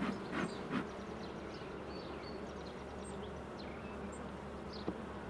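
Honeybee colony buzzing steadily from an open hive during an inspection, with one sharp click near the end.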